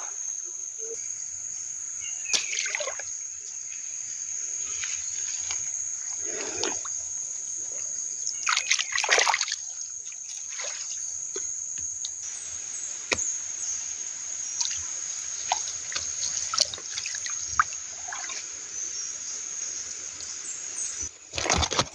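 River water splashing and trickling in irregular bursts, with the biggest splashes about nine seconds in. A steady high-pitched hum runs underneath.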